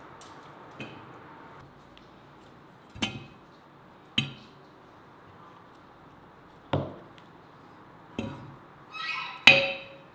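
Raw veal rib pieces set one by one into an empty Afghan kazan, each landing with a dull knock and a short metallic ring from the cast-aluminium pot. About six knocks, spaced a second or two apart; the loudest comes near the end.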